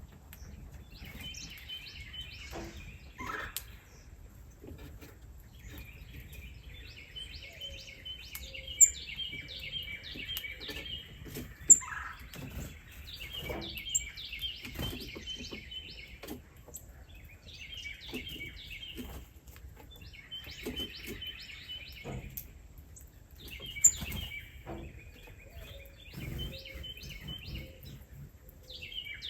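Small birds chirping in repeated quick bouts of rapid, high-pitched notes, each bout lasting one to three seconds. A few sharp clicks stand out, three of them louder than the chirping.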